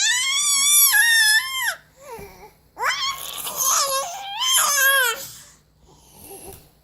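A baby making long, high-pitched wavering wails: one drawn-out cry at the start, then after a short pause a second cry broken into several wobbling pieces, fading to a faint sound near the end. The cries are her impression of a zombie baby.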